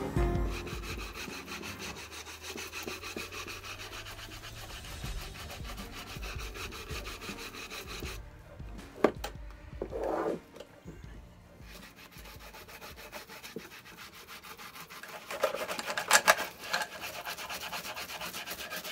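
Stiff bristle brush scrubbing over a waxed wooden box in quick repeated strokes, buffing clear paste wax into the stained wood. There are a couple of sharp knocks about nine and ten seconds in, then a louder spell of brushing near the end.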